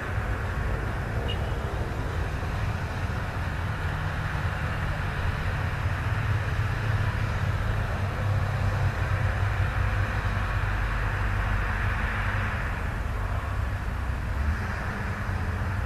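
Hitachi Zaxis 200 hydraulic excavator's diesel engine running steadily with a low rumble while the machine works.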